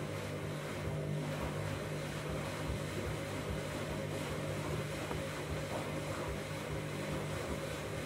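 Candy front-loading washing machine running mid-wash: a steady motor hum with the sound of water moving in the drum.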